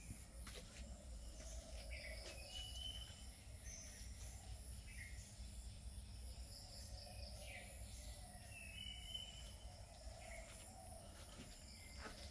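Faint rural ambience: a steady high insect drone with a few short bird chirps.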